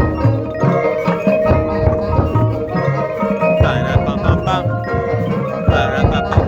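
High school marching band playing its field show: sustained wind chords over low, regularly recurring drum hits and percussion.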